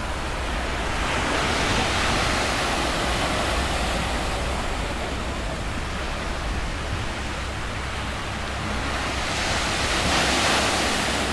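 Ocean surf washing onto the beach, swelling up twice, with wind rumbling on the microphone.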